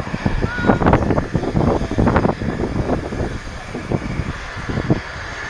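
Distant jet roar of a Boeing 737-800's CFM56 turbofans at take-off thrust as the airliner lifts off and climbs away, mixed with gusty wind buffeting the microphone that makes the loudness swing up and down.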